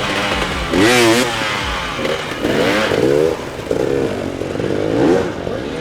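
Enduro motorcycle engines revving on the throttle in repeated bursts, the pitch rising and falling several times.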